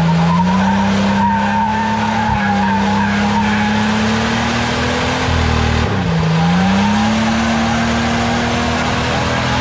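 The turbocharged TB42 straight-six of a GQ Nissan Patrol comp truck is held at high revs while the rear tyres spin on gravel-covered bitumen in a burnout, with tyre squeal and scrabbling. The revs dip and climb back about six seconds in.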